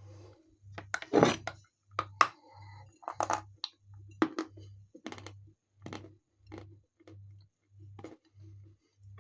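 Khrapovsky chalk being bitten and chewed: a string of dry crunches, loudest a second or two in, then softer and more spaced out.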